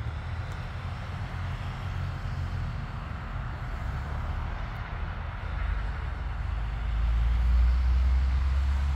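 Steady low rumble of a car moving slowly, engine and road noise, getting louder for the last few seconds.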